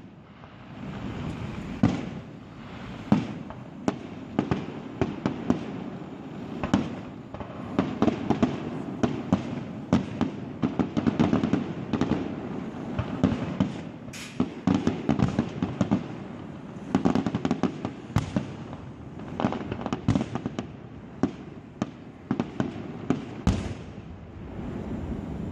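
Fireworks display: a steady run of sharp shell bursts and crackling bangs, several to the second in dense clusters, over a continuous low rumble.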